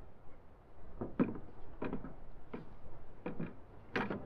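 Deer antlers knocking against plastic buckets and the tailgate as they are put back, a string of separate knocks with a few close together near the end.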